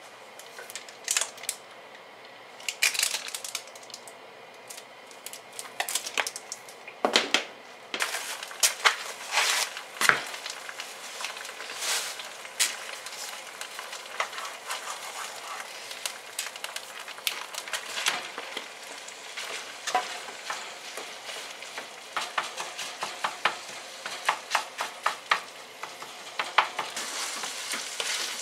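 Grated garlic and ginger sizzling in sesame oil in a nonstick frying pan, stirred with a wooden spatula that scrapes and taps against the pan. Near the end the sizzle grows louder as ground pork stir-fries.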